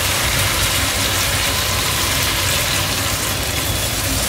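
Curry sizzling steadily in a kadai over a gas burner, a constant hiss with a low hum underneath.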